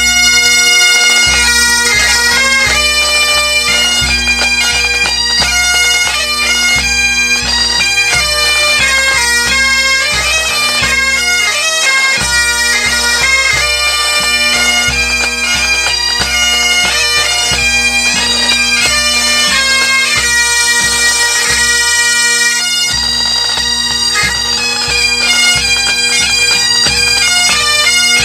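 Pipe band playing: Great Highland bagpipes sound a tune over their steady drones, with a bass drum beating time underneath. The bass drum drops out briefly twice.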